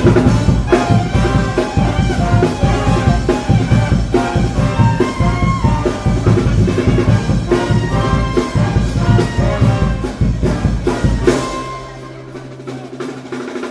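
Loud music with brass and drums, the drum strikes keeping a steady beat under several pitched lines. About three quarters of the way through it thins out to a held low note.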